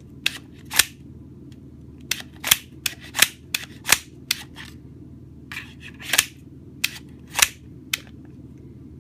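A series of about fourteen sharp plastic clicks and snaps at irregular spacing, some in quick pairs, as a Glock 17 magazine and its polymer base plate are worked in the hands.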